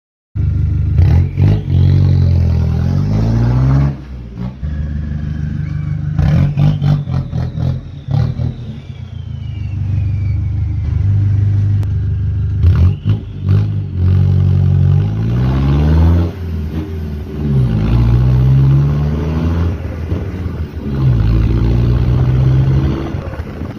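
Mercedes-Benz Sprinter 313 CDI's four-cylinder turbodiesel running loud through a straight pipe with no muffler. It is revved up and let back down about half a dozen times, dropping toward idle in between.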